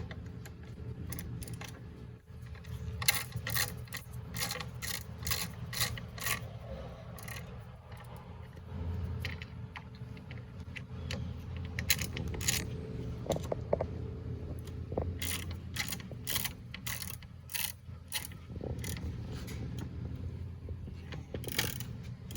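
Ratchet wrench clicking in short runs as the headlight's mounting bolts are driven in and tightened.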